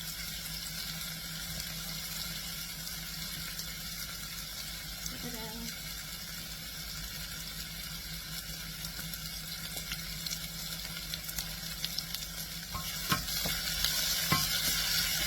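Onions and curry leaves frying in hot oil with mustard seeds, a steady sizzle that grows louder near the end with a few sharp crackles and clicks.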